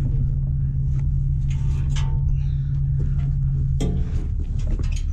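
A heavy truck's engine idling with a steady low hum and rumble. About four seconds in, a sharp click is heard and the engine note changes.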